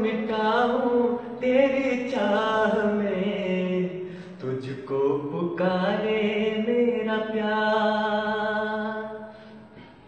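A young man singing unaccompanied in long held notes with a wavering pitch; the singing stops near the end.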